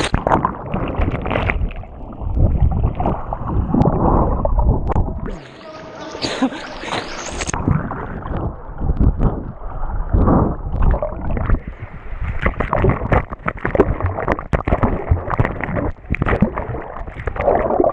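A swimmer dives into a swimming pool and swims underwater, heard from a camera under the water: a splash as it goes in, then continuous muffled churning and bubbling of water.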